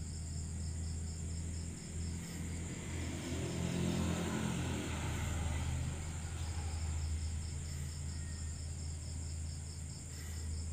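Insects chirring steadily in a fast pulsing high band, over a low hum. A louder rumble swells and fades about two to six seconds in, like a vehicle passing.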